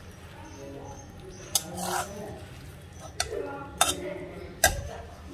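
Metal spatula stirring chana masala in a pan, scraping and clinking against the pan with four sharp clinks spread through the stir.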